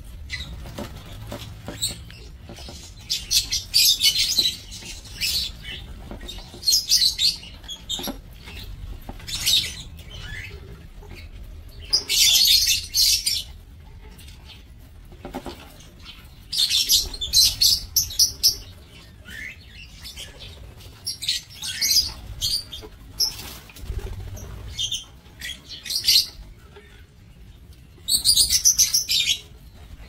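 A flock of lovebirds chirping in shrill bursts of high chatter, coming in clusters every few seconds, the loudest about four, twelve, seventeen and twenty-eight seconds in.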